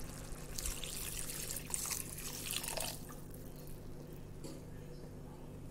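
A cup of water poured into a pan of bubbling curry masala, splashing for about the first three seconds, then dying down.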